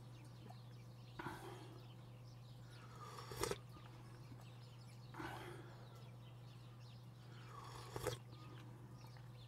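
Close-up mouth sounds of someone eating: a few short, wet smacks or gulps, about one every two seconds, over a steady low hum.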